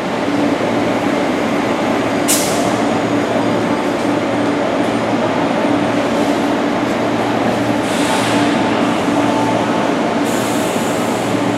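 MTR East Rail MLR (Metro-Cammell) electric train running in the depot: a steady hum, with a sudden sharp hiss about two seconds in and more high hissing near the end.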